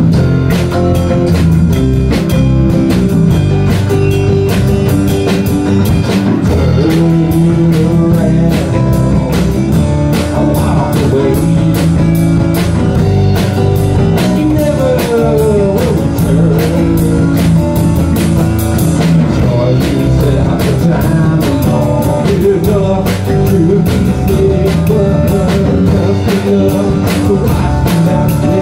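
Live rock band playing loudly: electric guitars over a drum kit, steady throughout.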